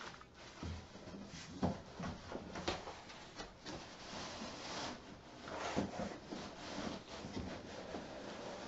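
Cardboard box and packing rubbing and scraping as a large PC case is worked out of it, with scattered knocks, the loudest a little under two seconds in and again near six seconds.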